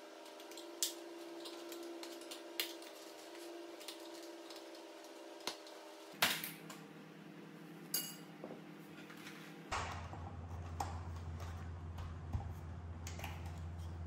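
Scattered clicks and knocks of plastic parts as a De'Longhi Nespresso coffee machine is taken apart by hand, about seven in all, the loudest about six seconds in, over a steady low hum.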